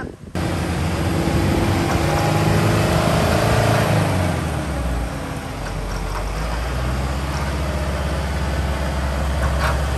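Isuzu D-Max pickup's diesel engine running under load as the truck is winched forward out of a mud rut, its note shifting in the first few seconds and then settling into a steady low drone from about halfway through.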